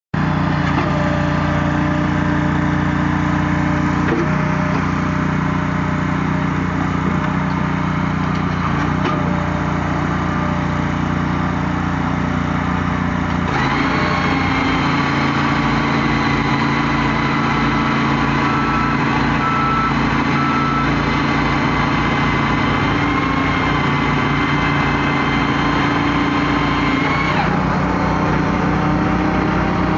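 Small gasoline engines of a firewood processor and its conveyor running steadily. About halfway through a higher-pitched whine joins the engine note and holds steady, then drops away near the end, as the machine works a log.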